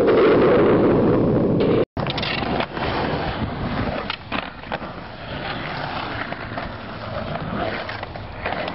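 Skateboard wheels rolling on concrete: at first a loud, echoing rumble inside a concrete pipe, then after a sudden cut a rougher roll around a concrete bowl, broken by several sharp clacks and knocks of the board hitting the lip and landing.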